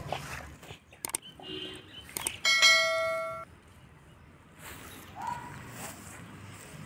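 Two quick clicks, then a bright bell-like ding that rings for about a second and fades out, like the click-and-notification-bell sound effect of a subscribe-button animation.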